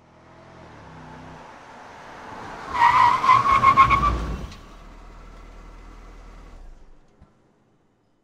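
Car sound effect for a logo intro: a swelling rush of engine noise, then a tyre screech of about a second and a half starting near three seconds in, then a low steady rumble that cuts off near the end.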